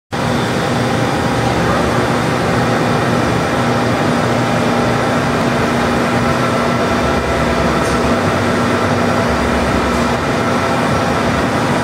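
1987 Harrison M500 gap-bed engine lathe running under power, its spindle and large chuck turning at a steady speed: a steady mechanical hum with a higher gear whine.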